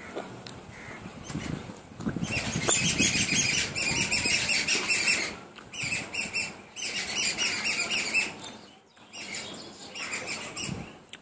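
Birds chirping in a rapid, chattering stream, loudest from about two seconds in until about eight seconds, with a brief break around five seconds. Lower chewing and mouth sounds from eating are heard underneath early on.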